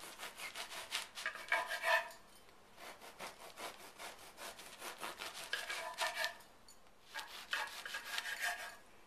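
Serrated bread knife sawing through a crusty loaf of French bread on a wooden cutting board, in quick back-and-forth strokes. The strokes come in several bouts, one per slice, with short pauses between.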